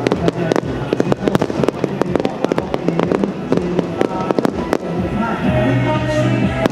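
Fireworks going off in rapid succession: a dense run of sharp bangs and cracks that thins out about five seconds in, with music playing over a loudspeaker.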